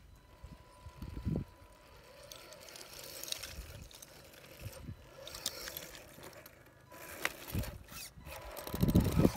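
Scale RC crawler truck (RC4WD Trail Finder 2) creeping over loose slate: a faint steady whine from its electric motor and gears, with scattered small clicks of tyres on stone, and a louder low rumble near the end.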